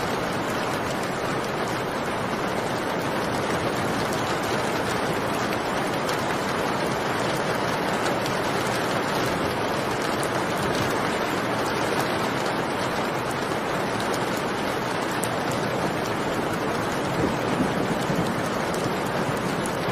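Rain falling steadily, an even hiss without breaks.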